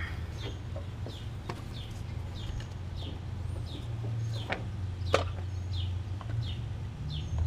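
Birds chirping over and over in short falling chirps, a few a second, over a low steady hum. Two sharp clicks come about four and a half and five seconds in.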